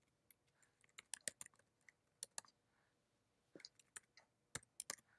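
Faint typing on a computer keyboard: irregular key clicks in short runs, deleting a few characters and typing new ones.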